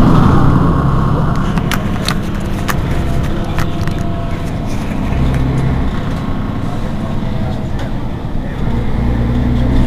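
Mercedes-Benz Citaro G articulated city bus standing at a stop with its rear-mounted engine idling steadily. A few sharp clicks come about two seconds in.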